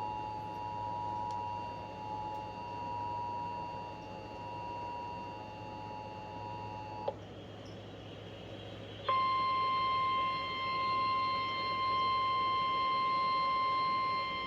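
Emergency Alert System two-tone attention signal sounding steadily, cutting off with a click about seven seconds in. After a two-second gap, the single-pitch 1050 Hz NOAA Weather Radio warning tone starts and holds steady.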